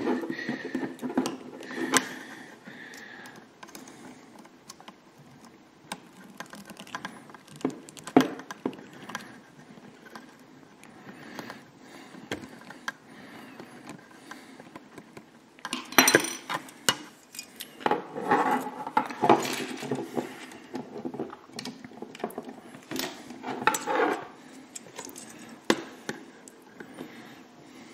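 Small plastic model-kit parts and a thin metal rod handled and fitted by hand: scattered light clicks and taps, busier past the middle and again near the end.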